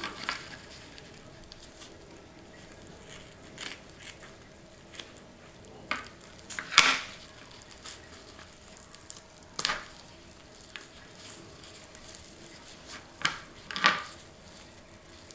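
Raw chicken wing muscle, skin and tendons being torn off the bone by hand in disposable plastic gloves: scattered short wet squelches and crackles, the loudest about seven seconds in and another near the end.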